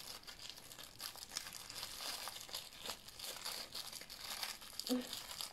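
Thin clear plastic cup crinkling and crackling as it is squeezed and crumpled in the hands, with foam cubes being worked out of it.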